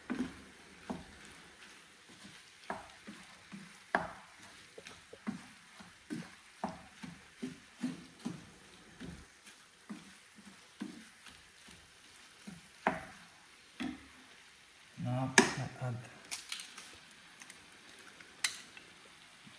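A prawn and vegetable filling frying in a pan, stirred with a wooden spatula: irregular short scrapes and taps against the pan over a faint sizzle.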